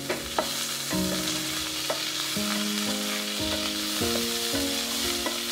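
Cubed rump steak sizzling steadily as it fries in a hot pan, with a few light clicks as it is stirred.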